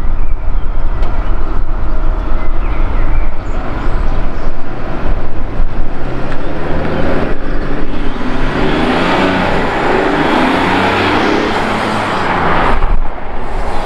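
Mercedes-Benz GLE 350d SUV with its six-cylinder diesel driving up and past. Engine and tyre noise swell as it goes by, loudest about eight to twelve seconds in.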